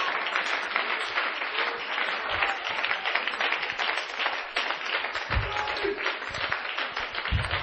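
Congregation applauding: a dense, steady patter of many hands clapping.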